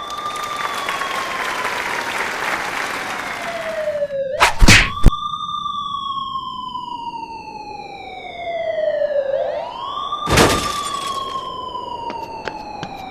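Siren wailing in slow cycles, its pitch sliding down over about four seconds and then sweeping quickly back up, over a hissing rush in the first few seconds. Loud sharp bangs cut across it about four and a half seconds in, two close together, and once more around ten seconds in.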